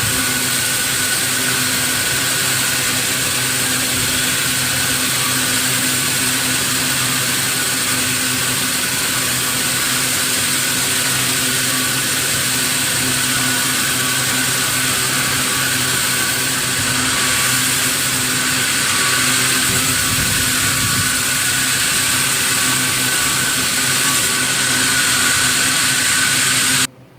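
Sawmill machinery running steadily: a loud, even mechanical noise with a constant high whine, cutting off abruptly near the end.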